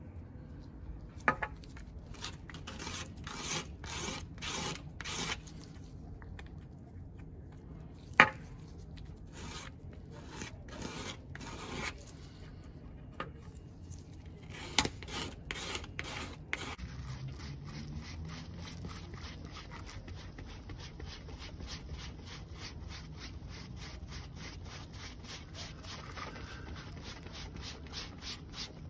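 Paint being scraped and spread over a textured collagraph plate with a small spreader in short, irregular strokes, with a few sharp knocks. From a little past halfway it becomes a fast, steady rubbing as a cloth and tissue paper wipe the paint back off the plate's surface.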